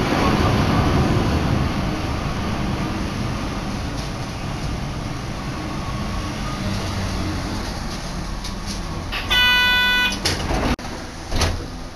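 Sapporo streetcar running between stops, heard from inside the car: a steady rumble and hiss of wheels and motor that slowly eases off. About nine seconds in, a loud steady pitched tone sounds for about a second. The running noise then cuts off sharply, followed by a couple of clicks.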